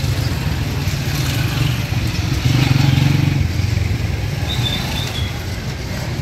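Busy street traffic dominated by motorcycle engines running close by, with one growing louder about two and a half seconds in as it passes. A brief high-pitched tone sounds about five seconds in.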